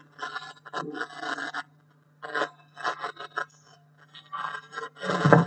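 Pages of a book and loose papers being leafed through and shuffled near a microphone, in irregular rustling, scraping bursts, the loudest just before the end. A steady low hum runs underneath.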